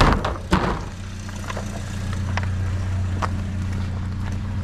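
A vehicle engine idling steadily, with a couple of sharp knocks near the start and a few lighter clicks later from rummaging through a dumpster.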